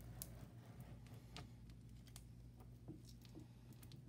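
Faint soft clicks and scrapes of a spatula scraping capped honeycomb off a wooden frame, over a steady low hum.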